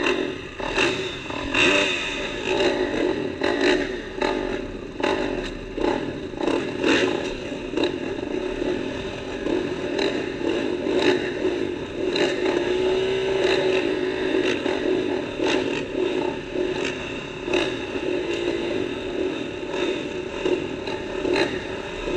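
A row of motocross bikes running on the starting gate, riders blipping their throttles so the engine noise surges up and down about once a second while they wait for the gate to drop.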